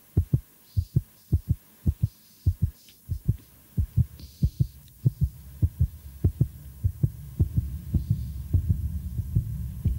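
Game-show suspense sound effect: a run of paired low heartbeat thumps with a low rumbling drone under them that swells steadily louder from about three seconds in, building tension while the game decides which player drops through a trapdoor.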